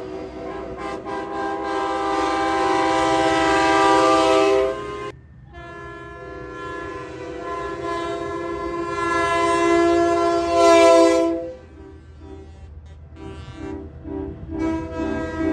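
Semi trucks' air horns blowing chords. There is one long blast of about four seconds, then after a brief break a longer blast of about six seconds, then a string of short toots near the end. The low rumble of the passing trucks runs underneath.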